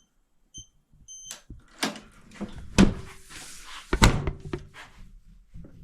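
A digital keypad lock on a U.S. General stacked tool cart beeps three times, about half a second apart. Then come several loud metal clunks and a scrape as the cart's lid and drawers are tugged against the lock to check whether it has locked.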